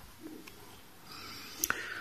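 Faint handling noise of fingers working coil wire into the deck of a rebuildable dripping atomizer and shifting the build stand, a soft rustle with one sharp click near the end.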